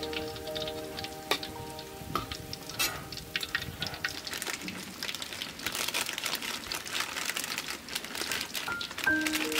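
Battered snakehead fish pieces deep-frying in a wok of hot oil, crackling and sizzling with dense, rapid pops, and a few sharper clicks in the first few seconds.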